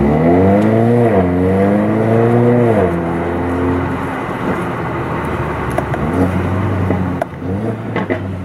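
Mercedes-Benz CLA 45 AMG's turbocharged inline four-cylinder engine, heard from inside the cabin, revving up under acceleration with an upshift about a second in, then climbing again before easing off near three seconds and running at lower revs. A few sharp cracks sound near the end.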